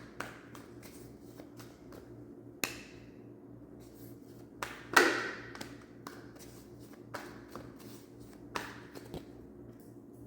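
Tarot cards being shuffled and handled: scattered light taps and card flicks, with one louder card slap about five seconds in.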